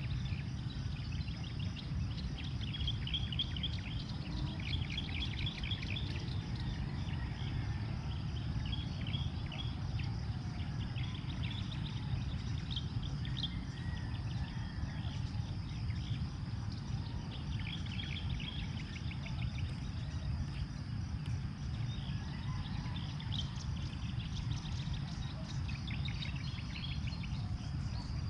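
Outdoor field ambience: a steady low rumble of wind on the microphone, with birds chirping in short runs every few seconds over a constant high insect drone.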